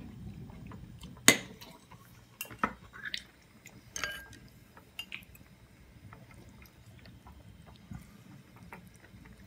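Utensils clinking against a ceramic bowl and a metal hot-pot pan while broth and lamb are served, with splashing and dripping liquid. A sharp clink comes about a second in, the loudest sound, followed by several lighter clinks over the next few seconds.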